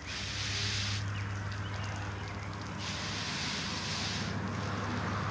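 Garden watering can sprinkling diluted muriatic acid onto concrete: a spattering hiss that fades about a second in, comes back near the middle and fades again, over a steady low hum.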